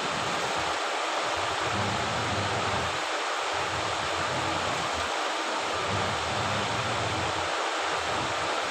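Top-loading washing machine running its wash cycle: water churning steadily, with the motor's low hum cutting in and out about every two seconds as the pulsator stops and reverses.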